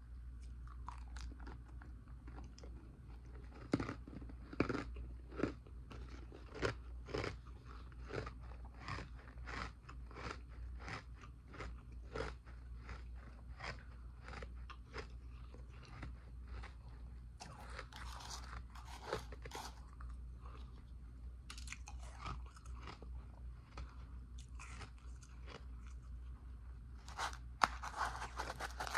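Powdery ice being chewed close to the microphone: a steady run of crisp crunches, about two a second, with a few denser crackling stretches of fresh bites toward the end.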